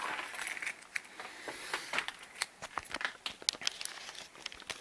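Rustling handling noise with scattered light clicks, as gear is fumbled with in the dark; no engine is running.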